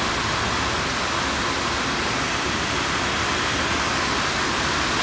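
Steady, even rushing noise of a vacuum running, with no distinct knocks or impacts.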